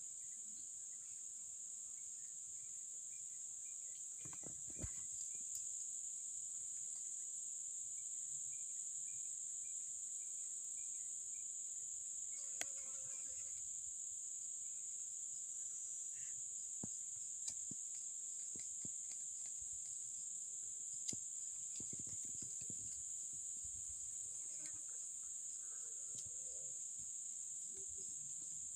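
Steady high-pitched chorus of insects, with a few faint sharp clicks and soft rustles scattered through it.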